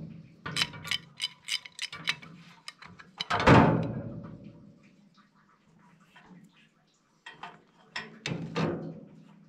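Metal squirrel-cage blower wheel being worked off a blower motor shaft: a run of light metallic clicks and rattles, then a louder clank that rings and fades about three and a half seconds in, and more clicks with a smaller clank near the end.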